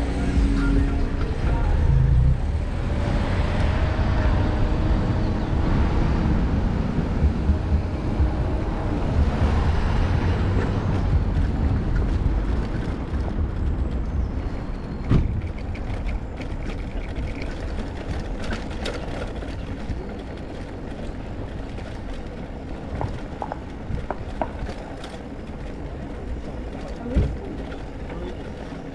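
Road traffic and a low rumble as the bike rides along a town street. About halfway the bicycle runs onto cobblestones, and the frame and parts rattle with frequent short clicks and knocks.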